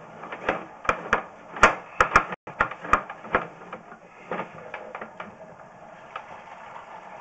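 Irregular clicks and knocks from a sewer inspection camera's push cable being fed into the line and pulled back, quick and frequent for the first three seconds or so and then sparser, over a faint steady hiss.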